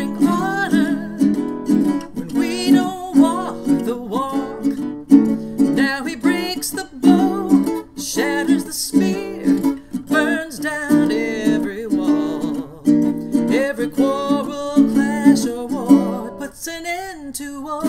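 Ukulele playing a blues instrumental passage: rhythmic strummed chords with a wavering melody line over them.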